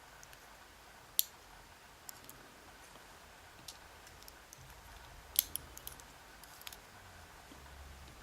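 Scattered sharp metallic clicks and taps from small lock parts and tools being handled as a pin tumbler lock is taken apart, the two loudest about a second in and about five and a half seconds in.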